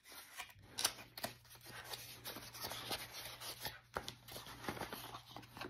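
Cardboard packaging being handled and opened by hand: irregular rustling, scraping and small clicks of cardboard flaps and box edges, over a faint steady low hum.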